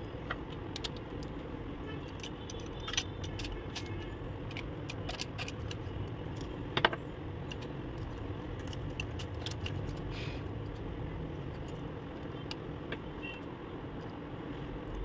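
Light, scattered plastic clicks and rattles as the ink-supply tubes and parts of an opened Epson L130 ink-tank printer are handled, with two sharper clicks about three and seven seconds in, over a steady low background hum.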